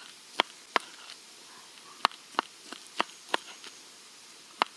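Kitchen knife slicing salted smoked bacon and tapping down onto a plastic cutting board: a series of sharp, irregular taps, three close together, a pause of about a second, then a quicker run of taps.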